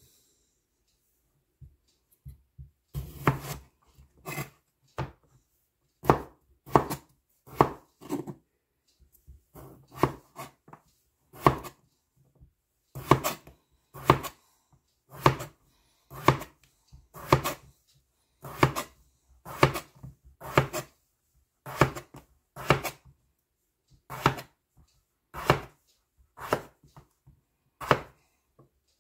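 Large kitchen knife slicing a raw potato into rounds on a plastic cutting board: a sharp knock of the blade against the board at each slice, about one to two slices a second with brief pauses, starting a few seconds in.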